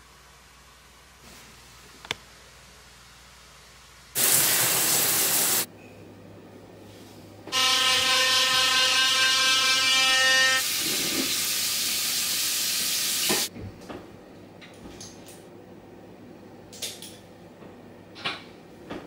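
Loud hissing rush of air in separate stretches: a short burst about four seconds in, then a longer one that carries a steady pitched tone for about three seconds before turning to plain hiss and cutting off suddenly. A few faint clicks follow.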